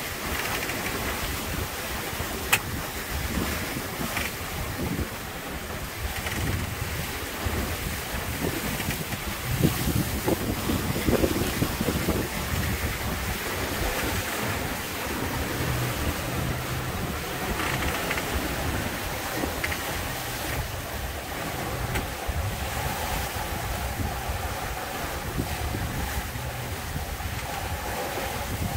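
Strong wind buffeting the microphone and rough sea rushing and splashing along the hulls of an F31 trimaran sailing fast, with a louder surge about ten seconds in. Occasional creaks and knocks come through, which the uploader puts down to the double-reefed mainsail.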